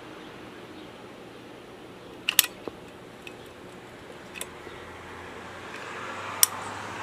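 A few sharp clicks from a caulking gun's trigger and plunger as a tube of Dicor self-leveling sealant is squeezed out: a double click a little over two seconds in, then single clicks about two seconds apart, over a steady low hum.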